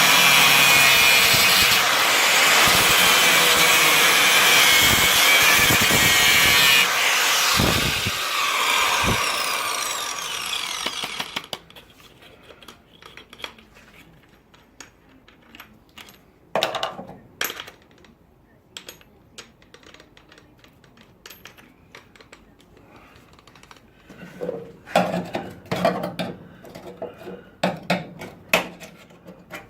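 Angle grinder grinding car-body steel, running at full speed for about seven seconds, then spinning down with a falling whine and stopping about eleven seconds in. Quiet clinks and knocks of metal and tools being handled follow, with a busier patch of knocks near the end.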